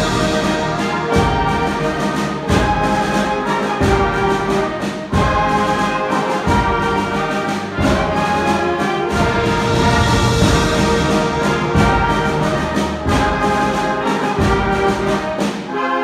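School concert band playing a loud, full passage: brass and woodwinds sounding sustained chords, with percussion strikes at regular intervals.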